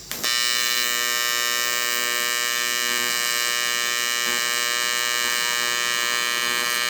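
AC TIG welding arc on aluminum: a steady, even-pitched buzz that strikes abruptly just after the start and holds without change.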